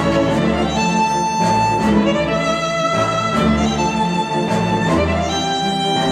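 Instrumental music with a violin-led string melody over a repeating bass line, played back through KEF LS50 Meta bookshelf speakers.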